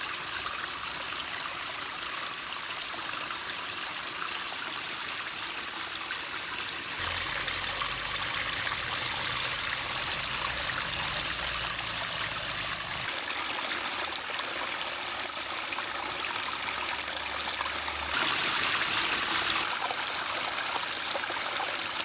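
Small garden pond waterfall: water spilling in a thin sheet over stone lips and splashing into the pond, a steady trickling rush. It gets a little louder about seven seconds in and again briefly near the end, with a low rumble underneath for several seconds in the middle.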